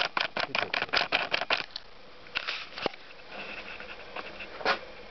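Camera handling noise: a rapid run of clicks and rustles as the camera is carried about, then a few scattered rustles and a sharp click.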